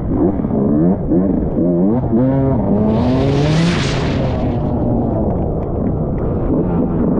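Off-road motorcycle engine heard from the rider's helmet, revving up in pitch several times in quick succession as it accelerates through the gears, then running on. A loud hiss about three seconds in.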